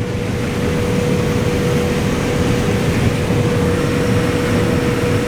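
Claas Lexion combine running steadily while combining corn: an even low rumble with a constant whine held on one note.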